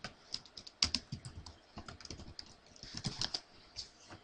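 Typing on a computer keyboard: short quick runs of keystrokes with brief pauses between them.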